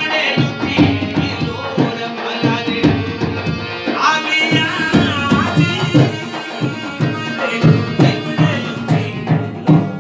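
Rajasthani Manganiyar folk bhajan: singing voices over a hand drum keeping a steady beat.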